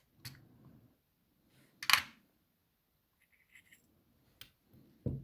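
Small metal clicks from a lock cylinder and a pinning shoe being handled while the lock is taken apart, with one sharp click about two seconds in and a duller knock near the end.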